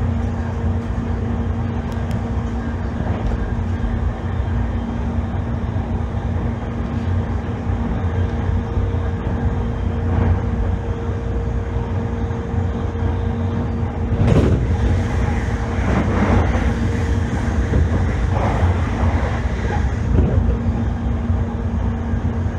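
Inside a JR East E531 series electric commuter train: a steady low rumble with a constant hum, and a sharp knock about two-thirds of the way through.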